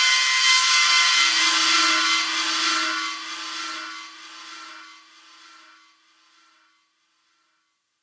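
Metal screech sound effect: a loud, ringing metallic squeal with several held pitches over a grinding hiss. It fades away from about three seconds in and is gone by about seven seconds.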